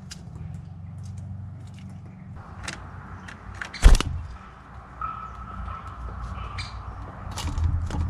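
A great spotted woodpecker flying in to a wire fat-ball feeder close to the microphone. There is a loud thump with a flutter of wings about four seconds in, then scattered light taps and scrapes, over a low steady rumble.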